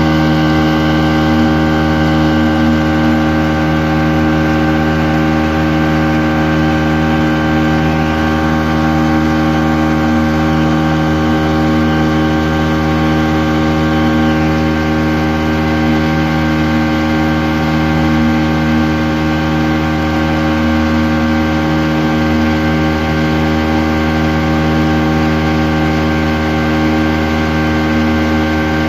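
25-horsepower outboard motor running steadily at constant throttle while the boat cruises, its pitch unchanging, with the rush of the wake mixed in.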